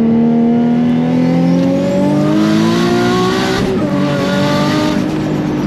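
Single-turbo Nissan 350Z's 3.5-litre V6 heard from inside the cabin, accelerating with its engine note rising steadily. About three and a half seconds in the pitch drops abruptly at a gear change, then holds steady.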